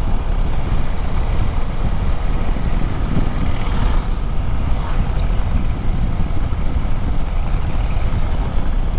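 Steady wind rush and road noise from a KTM 390 Adventure X motorcycle cruising at about 70 km/h, the wind buffeting the camera's microphone.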